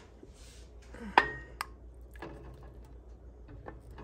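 Glass canning jars clinking against a metal water bath canner and its rack as they are set in with a jar lifter: one sharp, ringing clink about a second in, a second clink just after, then a couple of softer knocks.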